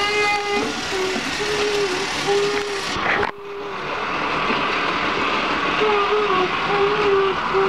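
Motorized toy train running around a plastic track, a steady whirring and rattling from its motor and wheels. Short held tones at one pitch sound over it several times, and the sound drops off abruptly about three seconds in before building again.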